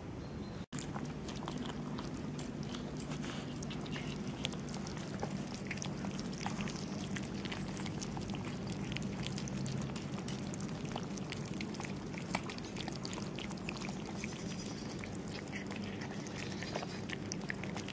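Several cats eating chunks of wet cat food in gravy from plastic tubs: many small, irregular wet chewing, smacking and lapping clicks over a steady low background hum.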